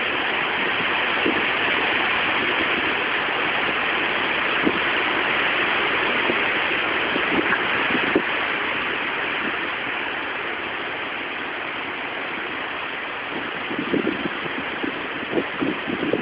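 Strong typhoon wind rushing steadily into a mobile phone's microphone, with gusts buffeting it in low thumps near the end.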